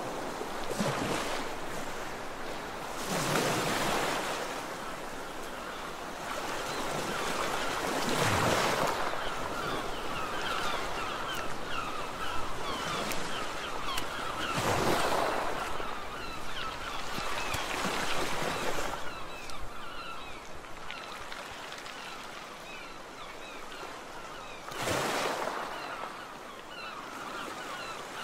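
Sea waves washing in, the rush swelling every four to six seconds, with many short bird calls over it from about a third of the way in.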